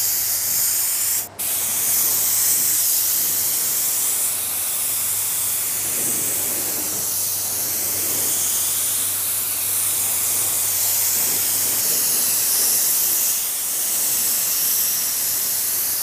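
An R500 (YT160) low-volume, low-pressure paint spray gun sends out a steady hiss of air as it sprays base coat at low pressure, with one brief break about a second in.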